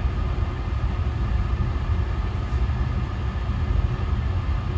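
Steady low rumble of a car running, heard inside the cabin, with the air conditioning fan blowing.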